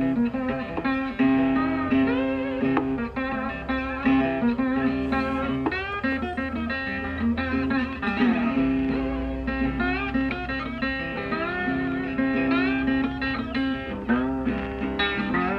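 Background guitar music, a plucked bluesy guitar tune with bending notes.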